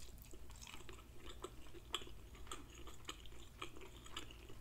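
Mouth chewing a bite of fried catfish: faint, irregular clicks, one sharper than the rest about two seconds in.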